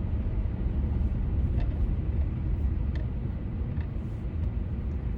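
Steady low rumble of a car driving, engine and tyre noise heard inside the cabin, with a few faint ticks.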